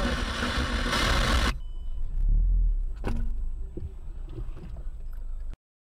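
A side-swipe collision between two cars, heard from inside the dashcam car: a harsh scraping noise of metal along the car's side lasting about a second and a half, then a low cabin rumble with a single knock about three seconds in. The sound cuts off abruptly near the end.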